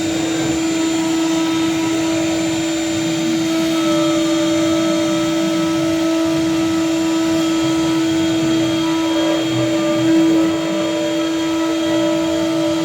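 Servo-driven lathe machine running with a steady whine over a motor hum, briefly louder about ten seconds in.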